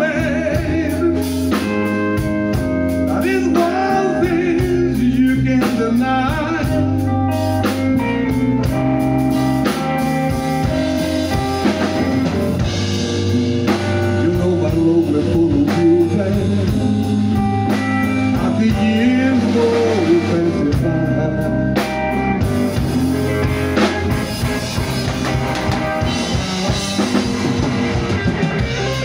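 Live blues band playing: electric guitar over electric bass and a drum kit, the guitar lines bending in pitch.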